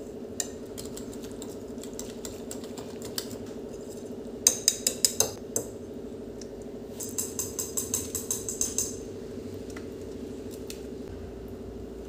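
Wire whisk beating batter in a ceramic bowl, the wires clicking against the bowl's sides in two quick runs: about five clicks a little before halfway, then about a dozen faster ones later on. A steady low hum underneath.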